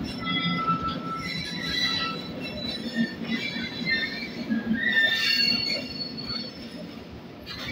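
Steel wheels of a moving WAG9 electric locomotive squealing against the rails: several high squealing tones that shift and come and go over a low rumble, loudest about five seconds in.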